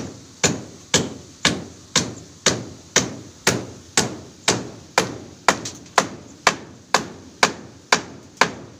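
Hammer driving nails into wooden boards, steady blows about two a second, each with a short ringing tail, stopping near the end.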